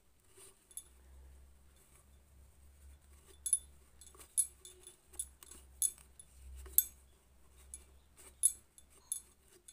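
A cloth rubbing around the needle bar and presser foot of a black sewing machine while dirt is wiped out, with irregular light clicks and clinks, about one a second from about three seconds in.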